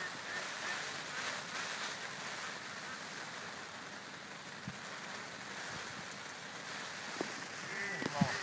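Steady wind and lapping lake water, with a few faint knocks and a brief sharp sound about eight seconds in.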